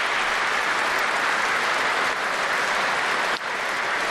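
Large audience applauding steadily, a dense even clatter of many hands clapping, with a brief dip about three and a half seconds in.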